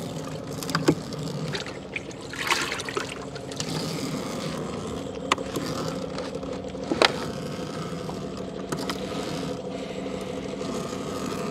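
A small boat's engine running steadily at low speed, with water trickling and splashing and a few sharp knocks as a wet gill net is hauled aboard.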